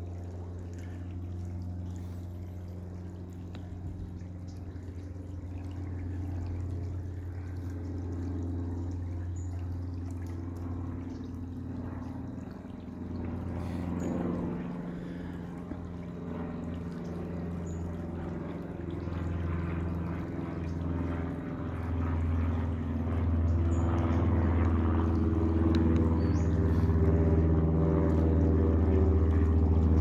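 A shallow creek trickling over stones, under a soft music bed of held low chords that change a few times and grow louder toward the end.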